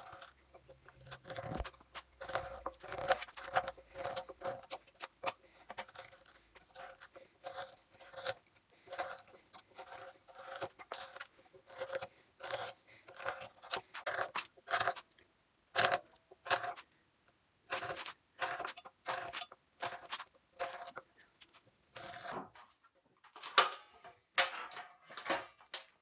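Bent hand carving gouge cutting and scraping into a wood block, a long series of short, sharp strokes roughly one or two a second.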